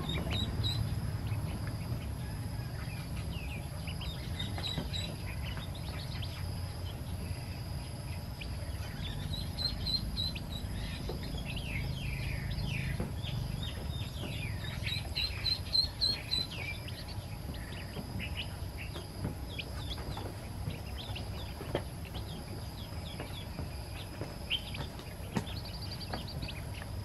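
Newborn chicken chicks and ducklings peeping: many short, high, downward-sliding calls in busy clusters, densest about halfway through, over a steady low background rumble.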